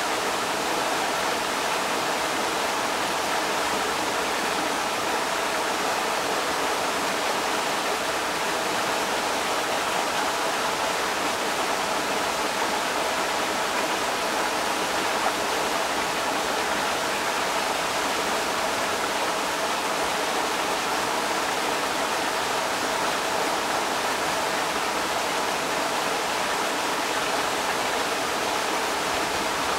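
Creek water rushing steadily over rocks, a constant even rush with no breaks.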